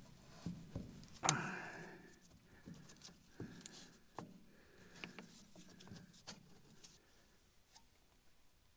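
Light clicks and small metal knocks as the oil cup of a tractor's oil-bath air cleaner is pushed up onto the cleaner body and its clamp is fastened. The loudest knock comes about a second in, and the handling sounds fade out near the end.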